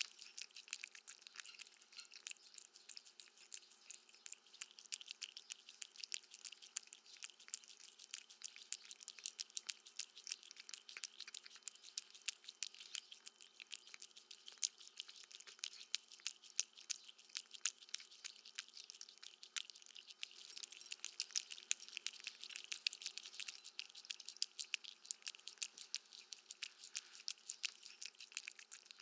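A cat chewing and eating food: a continuous rapid stream of small, sharp clicks and crunches.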